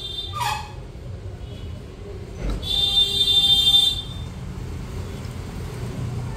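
Industrial sewing machine stitching through heavy embroidered fabric: a low motor hum throughout, a brief falling whine early, then a burst of stitching about two and a half seconds in with a loud high motor whine for about a second before it stops.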